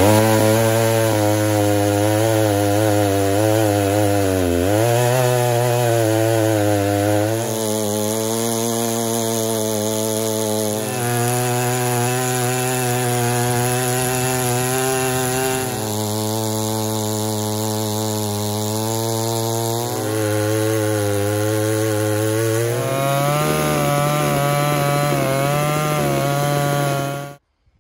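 Chainsaw held at full throttle while cutting through a large log into thin discs, a steady engine note. The pitch jumps abruptly several times and steps higher near the end, then the sound cuts off suddenly.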